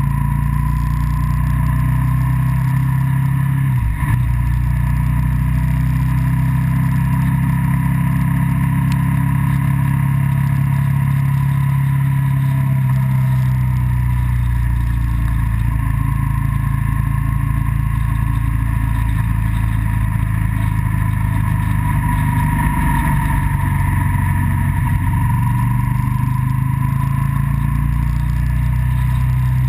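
Motorcycle engine running steadily at road speed, with wind rushing over the camera. The engine note dips briefly about four seconds in, with a click, and again a little before the end, like gear changes.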